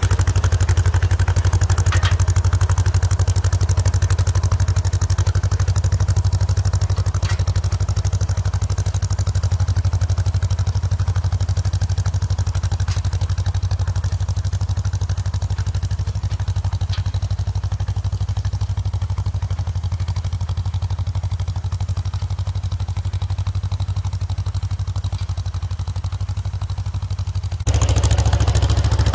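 1954 John Deere 40's two-cylinder engine running steadily under load while pulling a 20-blade disc harrow, with a few faint clanks. It fades a little as the tractor moves off and grows suddenly louder near the end as it comes back close.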